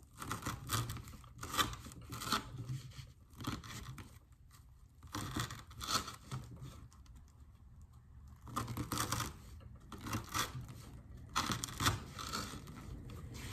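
An S30V Benchmade Mini Crooked River knife sawing through 3/4-inch manila rope: repeated scratchy tearing strokes as the rope fibres part, in uneven bunches with short pauses between cuts.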